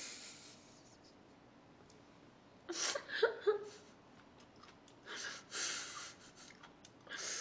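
A person's breathing and voice: mostly quiet, then a brief murmured vocal sound about three seconds in, followed by breathy hissing exhalations around five to six seconds and again near the end.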